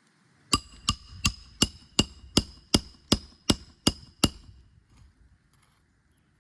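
Roofing hammer striking a roof snake to drive a roofing nail through a shingle: eleven quick, even metallic strikes, about three a second, each with a short ring, stopping a little past four seconds in.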